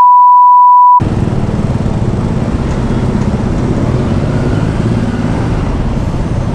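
A loud, steady one-note bleep that cuts off abruptly about a second in, a censor tone laid over swearing. After it, a motorcycle engine runs steadily with road and wind noise while riding in traffic.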